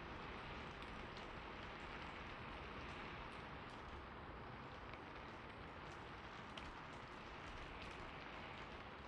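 Rain falling steadily, with scattered drops ticking.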